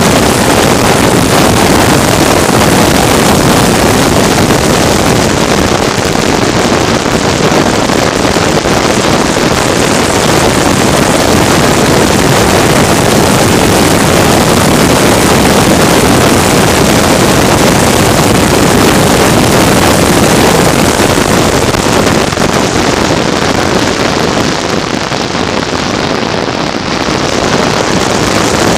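Loud, steady rush of a vehicle running at speed, with heavy wind noise on the microphone; it eases slightly a little before the end.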